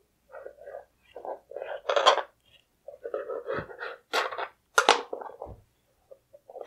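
A kitchen knife cutting a thin rolled sheet of samosa dough on the counter, then the two halves being handled: a string of short, irregular scrapes, taps and clicks.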